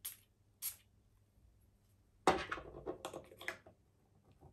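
Perfume atomizer spraying twice in short hissing spritzes about half a second apart. Just after 2 seconds there is a louder knock, followed by a second of short rustling and clicking handling sounds.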